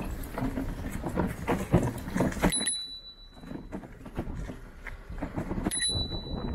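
Bicycle rattling over rough ground with road and wind noise, much quieter after about two and a half seconds. A sharp click with a brief high ring comes twice, about three seconds apart.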